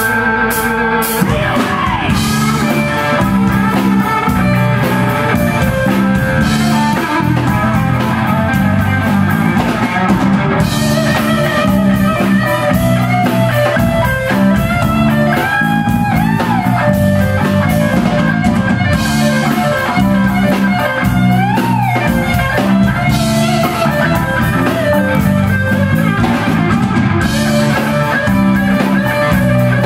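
Live rock band playing loudly: electric guitar and bass guitar over a drum kit, with some gliding, bent notes in the middle.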